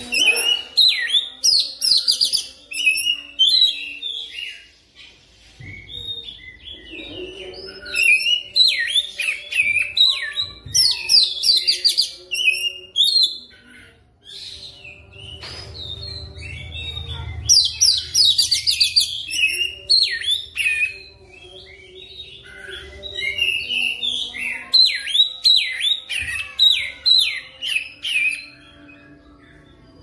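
Oriental magpie-robin (kacer) singing a long, rapid, varied song of clear whistles and fast rattling trills, in loud bursts with short lulls. This is the rolling 'ngerol' song used as a lure to set other magpie-robins singing.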